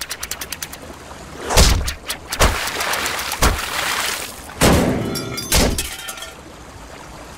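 A quick run of rapid ticks, then five dull thuds about a second apart, each with a short crackle.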